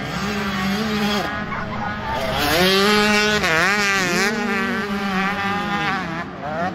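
Motocross bikes racing, their engines revving up and down as the riders work the throttle, more than one bike heard at once; loudest about three seconds in as they come nearest.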